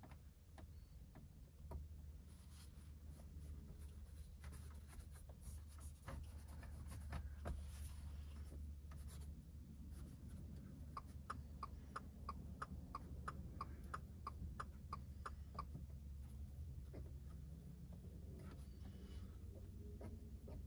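Microfiber towel wiping over a tempered-glass screen protector on a car's infotainment touchscreen, pressing out air bubbles. A faint rubbing with scattered light taps, and a run of short even ticks, about three a second, in the middle.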